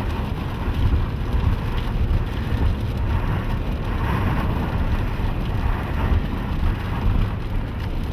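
Steady low rumble of a car driving through a rainstorm, heard from inside the cabin: road and wind noise with rain on the wet windshield.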